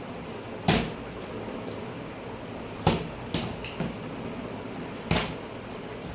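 Partly filled plastic drink bottle being flipped and landing on a table, each landing a sharp thud: one under a second in, one near three seconds followed by two smaller knocks as it tips and rolls, and one more about five seconds in.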